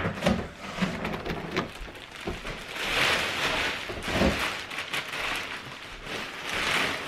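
Clear plastic bag rustling and crinkling in several spells as it is pulled off a car seat, with a few sharp knocks and scrapes of a cardboard box being moved near the start.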